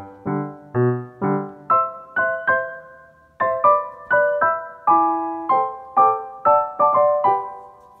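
Background piano music: a light melody of single struck notes, about two or three a second, each fading away after it is struck.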